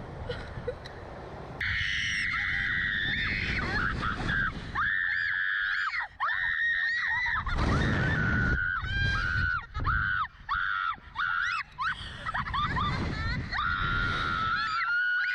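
Girls screaming on a slingshot thrill ride. The screams start suddenly a second or two in as long high-pitched held screams, break into a string of shorter screams in the middle, then stretch out into a long held scream again near the end.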